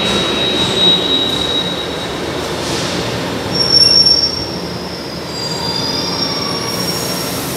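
São Paulo Metro Line 1 train pulling into the station and braking, with a steady rumble and high-pitched squealing. The squeal is loudest about four seconds in.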